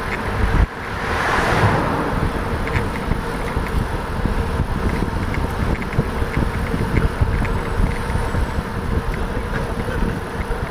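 Wind rushing over the microphone and the rolling rumble of a moving bicycle on a paved street, with light rattling throughout and a stronger rush of noise about a second in.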